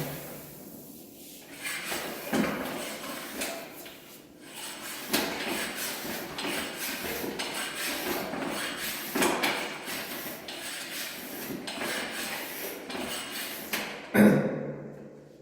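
Irregular knocking, rubbing and clattering of hands and tools handling a bicycle and its inner tube during a puncture repair, with a louder knock near the end.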